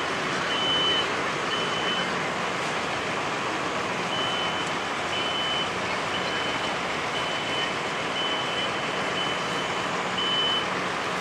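A vehicle's reversing beeper sounding about once a second, with a pause of about two seconds near the start, over a steady engine running.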